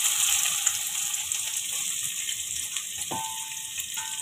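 Chopped onions frying in hot oil in a metal pot, just added: a steady high sizzle that slowly fades as the oil cools around them.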